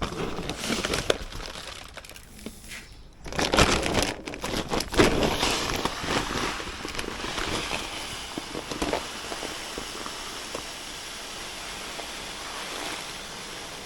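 Crackling, rustling noise of chicken feed being poured out and meat chickens crowding in to eat, in irregular bursts that are loudest a few seconds in, then settling to a steadier, fainter rustle.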